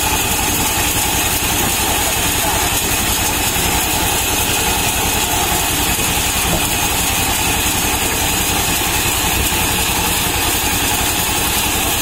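Sawmill's band saw and its drive running steadily, with a fast, even low throb.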